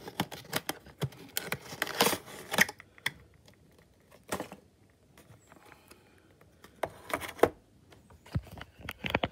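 Clear plastic packaging being handled and a model airliner in its plastic case lifted out of the box: a dense run of clicks and crinkles for about three seconds, then scattered clicks and taps.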